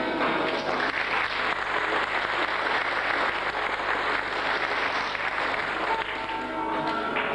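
Audience applauding over guitar backing music. The clapping swells about half a second in and dies away around six seconds, when the music comes through clearly again.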